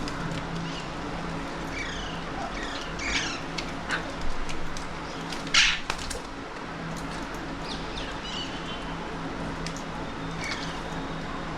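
Alexandrine parakeets calling: a scatter of short, sharp calls, the loudest about halfway through, over a steady low hum.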